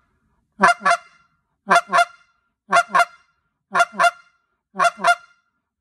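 Short reed goose call blown in pairs of quick clucks, five pairs about a second apart. Each pair is two separate tongue strokes on the call, two single clucks rather than a true double cluck.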